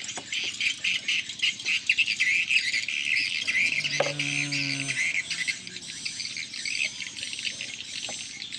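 Outdoor chorus of birds chirping and insects trilling steadily and densely, with a man's voice briefly, held for about a second, around four seconds in.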